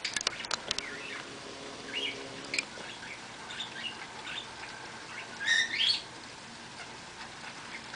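Small birds chirping now and then, the loudest call about five and a half seconds in, over a steady hiss of rain. A few sharp clicks just at the start.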